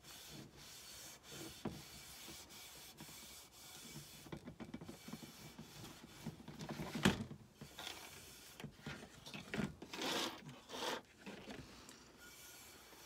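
An old t-shirt rag rubbing wax into a decoupaged silver-plated tray in irregular scrubbing strokes, with a single knock about seven seconds in.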